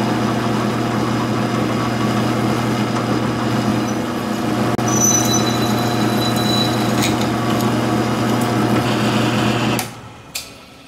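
Milling machine spindle running steadily with a low motor hum while an end mill and then a twist drill bore holes in a metal bracket, with a thin high whine from the cut partway through. The machine shuts off about a second before the end, followed by a single click.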